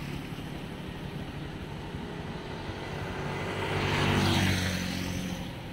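A dirt-style motorcycle passes by, its engine drone growing louder to a peak about four seconds in and then fading away.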